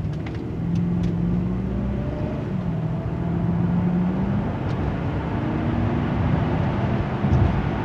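BMW 750i's 4.8-litre V8 accelerating hard, heard from inside the cabin: the engine note rises, drops once about two and a half seconds in as the automatic shifts up, then rises again, over steady road noise.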